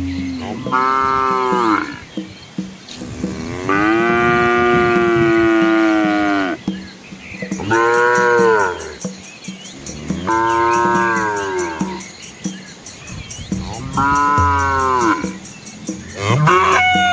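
Cattle mooing: about six separate moos, the longest lasting some three seconds from about four seconds in, with a faint fast high ticking starting about halfway through.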